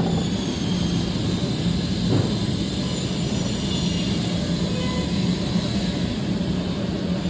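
A steady low hum over an even rushing background noise, with a faint knock about two seconds in.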